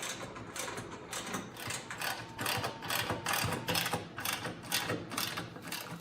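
Socket ratchet clicking in quick repeated strokes, about three a second, as it drives in the bolts that hold a snowblower gear reduction unit in the auger housing.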